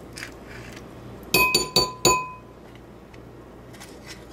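A metal spoon clinks against a ceramic bowl four times in about a second, each tap leaving a short, bright ring.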